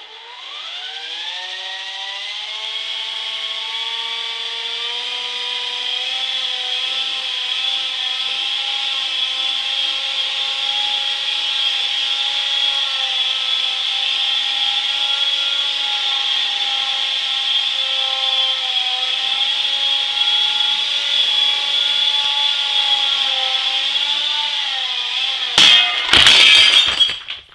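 Walkera Dragonfly 4 electric RC helicopter spooling up with a rising whine, then hovering with a steady, loud motor-and-rotor whine. Near the end, a burst of rapid strikes as the rotor blades hit a lamp and the helicopter crashes, and the whine stops.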